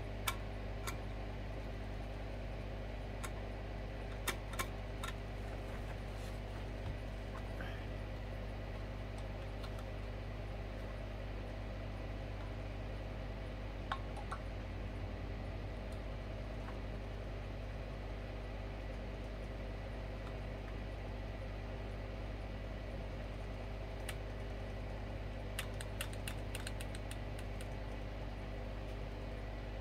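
Steady machine hum with several fixed tones, with scattered small clicks and taps of parts being handled: a few in the first five seconds, one near the middle, and a quick cluster a few seconds before the end.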